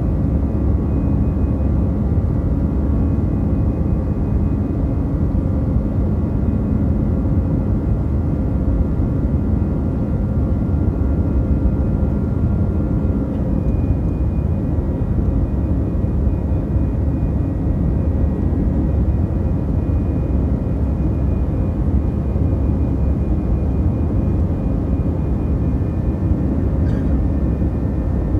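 Jet airliner cabin noise during the climb after take-off: the engines and rushing air give a steady loud low rumble, with thin whining tones above it that shift in pitch about halfway through.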